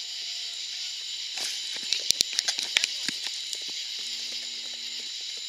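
Consumer firework going off: a brief hiss about a second in, then a quick string of sharp crackling pops lasting about a second.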